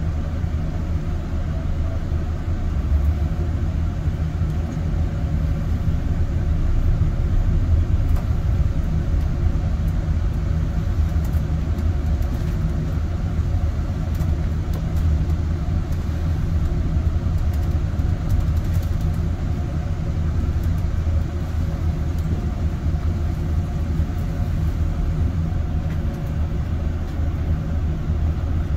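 A city bus in motion heard from inside, its engine and road noise making a steady low rumble.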